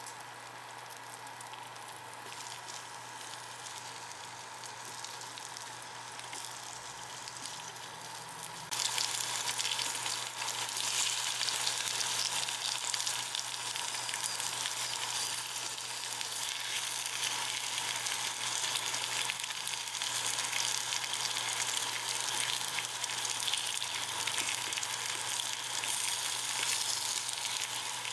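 Food sizzling in a frying pan: a soft, steady sizzle at first, then an abrupt jump about nine seconds in to a much louder, brighter sizzle.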